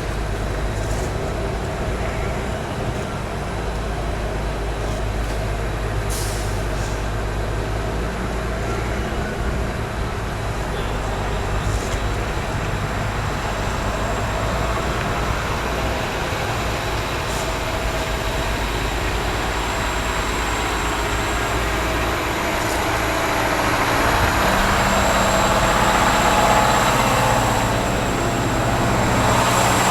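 A heavy vehicle's engine running steadily under a haze of traffic noise, rising and getting louder near the end as it pulls away under load.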